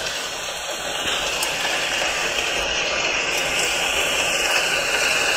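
A man's long, loud scream.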